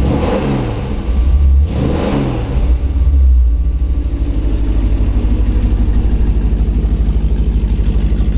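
GM 350 crate V8 running through a stainless exhaust: revved twice, then settling about three seconds in to a steady idle with an even, rapid pulse.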